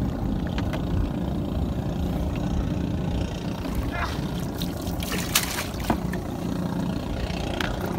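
Small fishing boat's engine idling steadily, with a few sharp knocks around the middle as a mesh catch bag is hauled up over the side.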